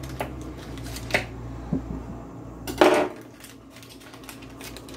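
Kitchen dishes and utensils being handled: a few light clinks, then one louder clatter about three seconds in.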